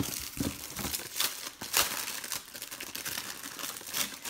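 Packaging rustling and crinkling inside a cardboard box as hands rummage through it and lift out an item, in irregular crackles, the sharpest a little over a second and near two seconds in.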